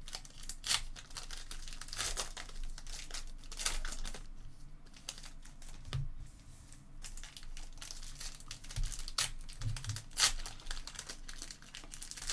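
Trading card packs being torn open by hand, their wrappers crinkling and crackling in irregular sharp snaps, with the cards inside rustling.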